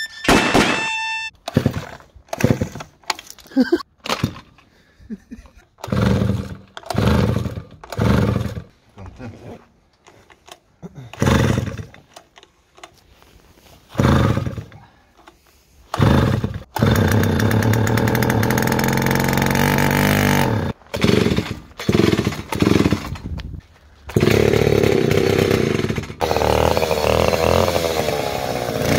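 Druzhba two-stroke chainsaws being pull-started: short separate bursts of starter pulls and brief firing through the first half. Then an engine catches and runs, stumbles and sputters a little past the middle, and runs steadily again.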